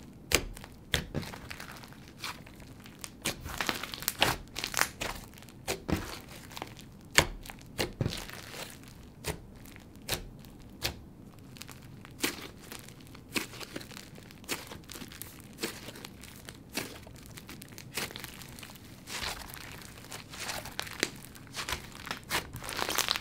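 Hands squeezing, folding and pressing a thick, crunchy slime full of clay pieces and beads, making irregular soft crunches, pops and crackles.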